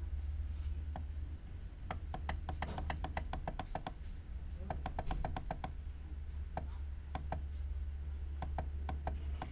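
Clicking at a computer: quick runs of sharp clicks, about eight a second, around two seconds and again around five seconds in, then scattered single clicks. A steady low hum runs underneath.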